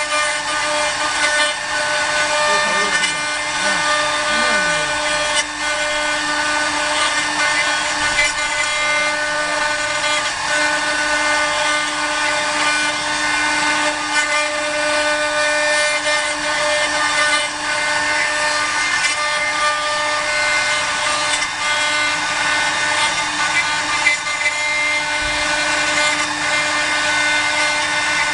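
Multi-spindle 4-axis CNC router carving wood: the spindle motors give a steady whine at several pitches over a constant hiss as the bits cut into the wooden workpieces turning on the rotary axes.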